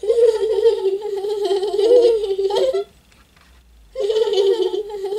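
High-pitched laughter from a voice playing the doll characters: one long wobbling laugh of nearly three seconds, then a second one starting about a second later.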